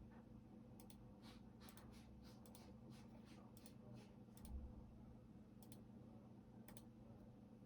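Faint typing on a computer keyboard: a quick, irregular run of key clicks through the first half, then a couple of isolated keystrokes, over a steady low hum.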